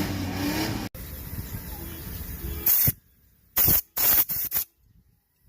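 Three or four short blasts of pressurised spray hissing into a carburetor as it is cleaned, each lasting well under a second.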